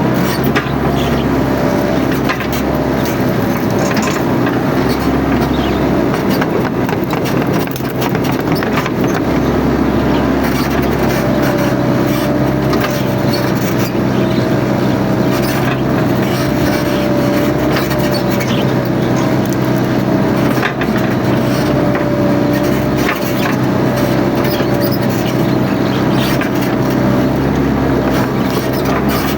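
Mini excavator engine running steadily under working load, with a wavering hydraulic whine over it and scattered sharp cracks and clicks.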